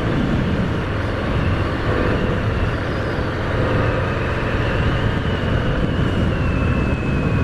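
Harley-Davidson FXDR's Milwaukee-Eight 114 V-twin running steadily at road speed while riding, with a faint high whine that drifts slightly lower in pitch in the second half.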